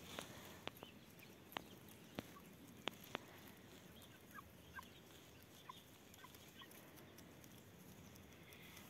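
Hens foraging, heard faintly: a few short, soft clucks, with a handful of sharp ticks in the first three seconds.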